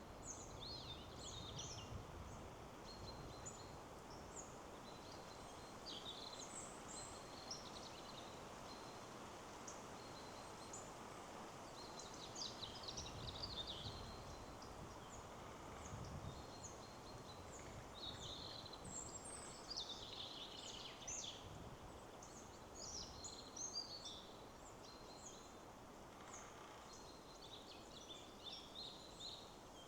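Several small songbirds chirping and trilling on and off, with short flurries of calls, over a steady soft rush of wind through trees.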